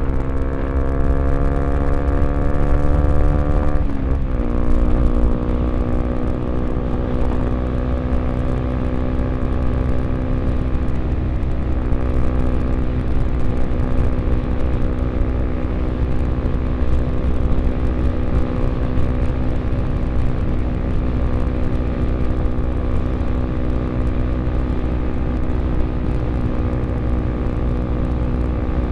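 Honda XRE 300's single-cylinder engine through a Roncar 2 Way aftermarket exhaust, under way. The engine note climbs, drops sharply about four seconds in as it shifts up, then climbs slowly and settles to a steady cruise.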